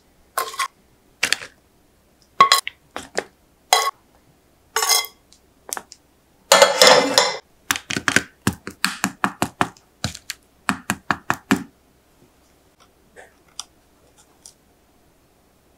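Crisp sweet potato chips being set onto a parchment-lined plate with tongs: a series of light clicks and taps of tongs and chips, with a denser clatter about seven seconds in. The clicks thin out to a few faint ticks over the last few seconds.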